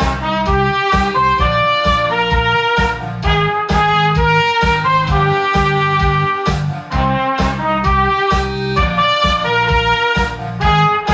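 Cornet playing a melody over a recorded backing track with bass and a steady beat.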